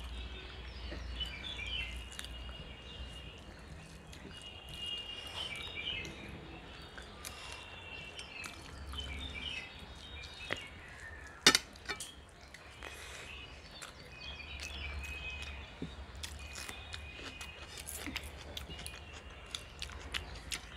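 Quiet eating by hand: fingers working rice and curry on plates, with small clicks and one sharp clink about eleven and a half seconds in. Birds chirp repeatedly in the background.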